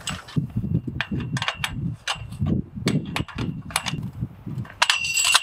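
Metal tubing and chain-link of a dog kennel frame clanking and knocking as it is handled and loosened, a run of sharp knocks. Near the end a louder clang leaves a metal tube ringing.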